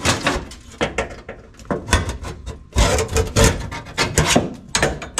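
Stubborn interior windshield trim being pulled and pried loose from the frame: irregular scraping and rubbing with sharp clicks and knocks, heaviest about three seconds in.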